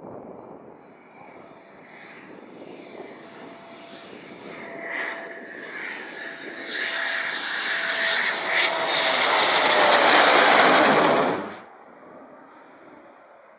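Eurofighter Typhoon twin jet engines on landing approach with gear down, growing steadily louder as the jet closes in and passes, with a whine that drops in pitch near the loudest point. The sound cuts off abruptly near the end, leaving a much fainter jet sound.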